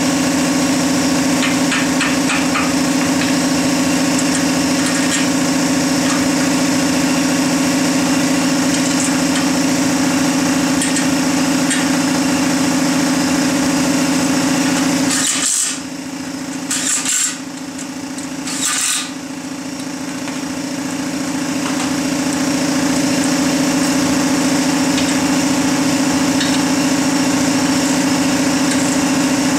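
A steady machine hum from a running motor. About halfway through, three short hissy bursts come as the hum briefly dips, and then it builds back to full.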